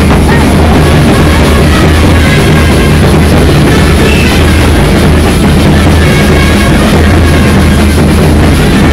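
A Bangladeshi band party playing continuously: large bass drums and other drums pound steadily under a dense, very loud wall of band music.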